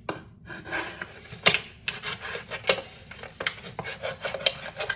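Thin aluminium drink can being cut with a multitool knife blade: irregular sharp clicks and short scraping crackles of the metal.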